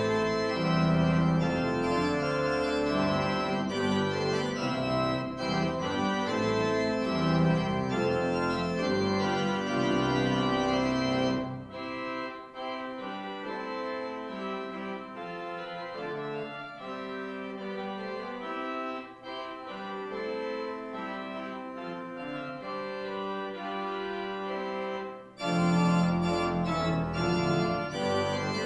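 Organ postlude played at the close of a church service, in sustained chords. It begins full with a deep bass, drops to a softer, thinner passage without the low bass about eleven seconds in, and returns to the full sound near the end.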